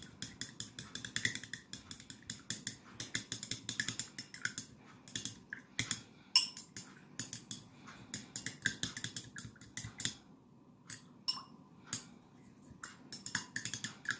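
Long metal spoon stirring a drink in a stemmed glass, clinking rapidly against the glass several times a second; about ten seconds in the stirring slows to a few scattered clinks.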